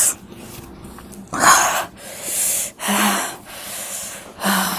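A person breathing hard in several sharp, hissing breaths through the mouth, the last two with a short voiced catch. This is the reaction to the burn of extremely spicy Korean noodles.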